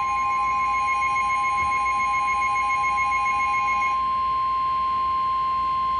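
The NOAA Weather Radio warning alarm, a steady single tone near 1 kHz, sounding before a severe thunderstorm warning is read. For about the first four seconds a second, pulsing beep sounds over it, then stops while the steady tone carries on.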